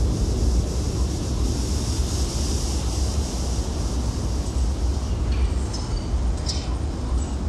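Steady outdoor rumble with a hiss over it, unbroken throughout, and a few short high chirps in the last couple of seconds.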